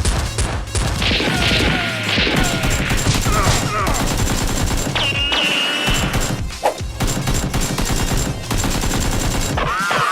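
Sustained rapid gunfire, shot after shot with hardly a pause, as in a staged firefight sound effect.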